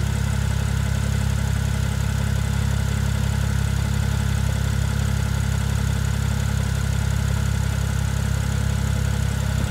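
2011 Porsche 911 Turbo S's 3.8-litre twin-turbo flat-six idling steadily with a deep, even note, with no revving.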